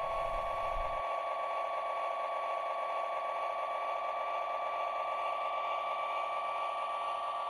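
Lionel LionChief Plus GP-7 O gauge locomotive running on the track, giving a steady, high-pitched hum that holds one pitch throughout.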